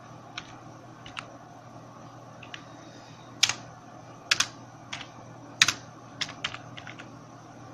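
Computer keyboard keys being typed in irregular strokes over a steady low hum. A few soft keystrokes come first, then louder, quicker ones from about halfway through.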